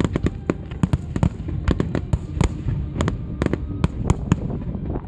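Fireworks bursting in quick succession: many sharp cracks and bangs, several a second, over a continuous low rumble of explosions.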